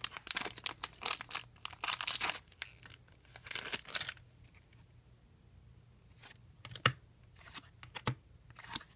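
Foil booster-pack wrapper being torn open and crinkled for about the first four seconds, then quieter with a few light clicks.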